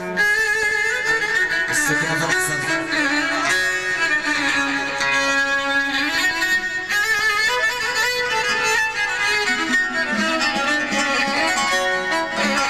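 Band music led by a violin playing a quick ornamented melody over steady percussion beats, starting abruptly.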